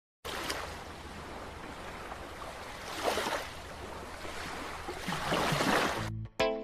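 Sea surf washing onto a beach, a steady rush that swells twice, then cuts off near the end as music starts.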